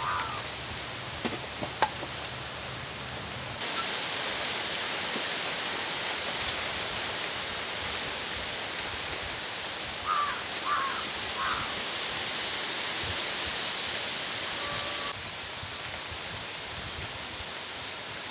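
Steady outdoor hiss that grows louder from about four seconds in and drops back near fifteen seconds, with a few short bird chirps about ten seconds in.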